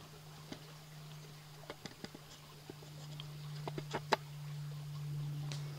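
Faint, scattered clicks and taps from the lock of a Kibler Woodsrunner flintlock being fitted into the inlet of its wooden stock, a test of its clearance. A steady low hum sits underneath.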